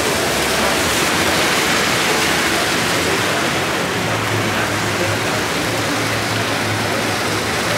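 Greenmatik car wash gantry running, its orange and black foam brushes spinning: a steady rushing swish with a low motor hum underneath.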